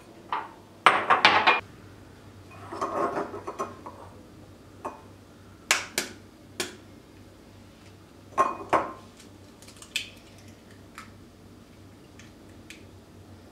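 Kitchen crockery being handled on a stone countertop: ceramic bowls, a drinking glass and a glass mixing bowl knocked and set down in a series of clinks and knocks, loudest about a second in. Later come sharp taps as an egg is cracked and its white separated into the glass bowl.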